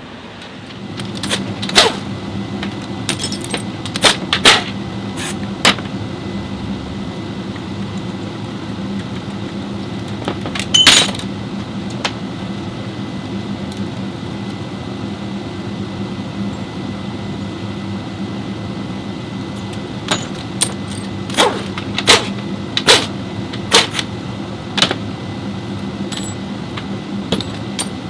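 A steady mechanical hum with many sharp metallic clinks and knocks scattered over it, coming in small clusters.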